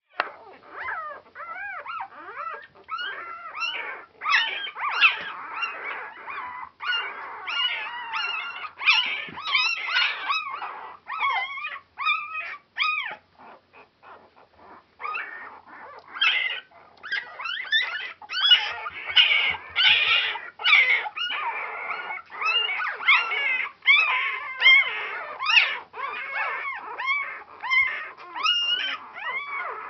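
A litter of four-day-old Border Collie puppies crying, with many high-pitched calls that rise and fall in pitch, overlapping almost without pause. There is a short lull about halfway through.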